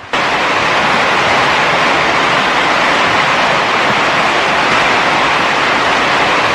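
Floodwater rushing in a torrent: a steady, loud, even rush of water that cuts in suddenly at the start.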